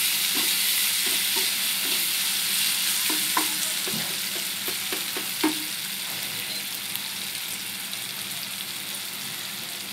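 Sliced onions, capsicum and tomato sizzling in oil in a kadai, with a wooden spatula scraping and knocking against the pan as it stirs during roughly the first half. The sizzle gradually dies down.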